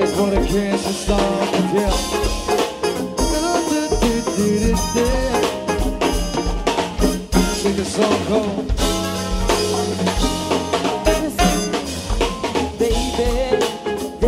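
Live band playing a song: drum kit keeping a steady beat over bass, with a melody line moving above.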